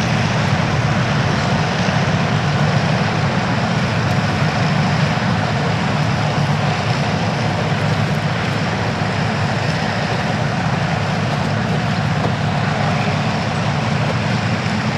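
Second World War piston aircraft engines running, a steady low drone with no rise or fall.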